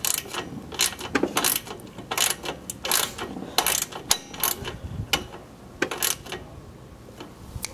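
A bolt being screwed in and tightened by hand on a lawnmower engine's dipstick tube: irregular small metallic clicks and rattles of the tool and bolt, a few a second. They stop about six seconds in.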